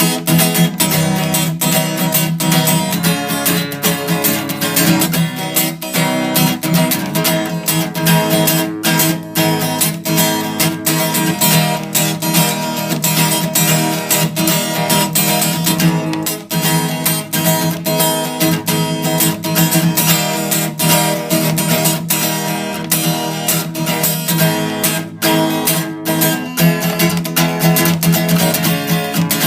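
Music: strummed acoustic guitar playing a steady rhythm.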